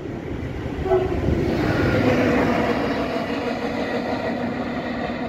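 SM42 diesel shunting locomotive running light engine toward the listener. Its engine and running gear rumble, with steady tones that come in and grow louder about a second or two in as it nears.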